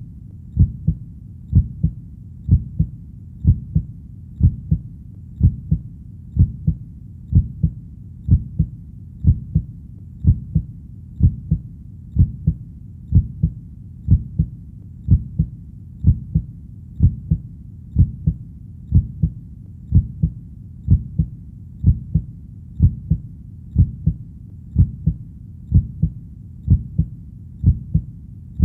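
Heartbeat, a steady lub-dub rhythm: each beat a pair of low thumps, repeating evenly at a little more than one beat a second.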